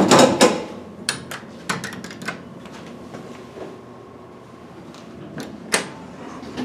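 KONE hydraulic service elevator, with a loud clattering rattle of the car and its doors in the first half-second. Several sharp clicks follow, then a faint steady hum and one more sharp click near the end.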